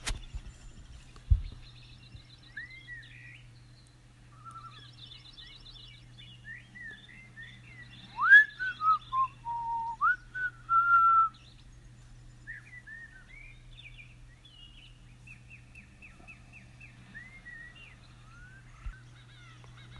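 Park birdsong ambience of scattered chirps and trills, with a person whistling a short gliding tune for about three seconds near the middle. A sharp knock sounds about a second in, and a faint steady low hum runs underneath.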